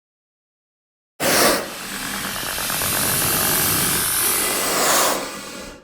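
Xenomorph creature hiss sound effect: it bursts in suddenly about a second in, runs on as a long harsh hiss, swells once more near the end and then fades out.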